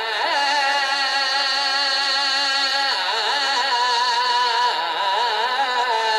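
A man's voice singing a qasida in long, melismatic held notes with a wavering pitch, a new phrase beginning about three seconds in.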